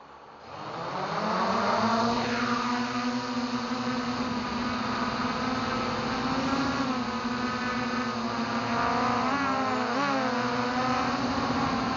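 Electric motors of a small multirotor drone spinning up from rest over the first two seconds as it lifts off, then a steady whine. Near the ten-second mark the motors' pitches shift and cross as it manoeuvres.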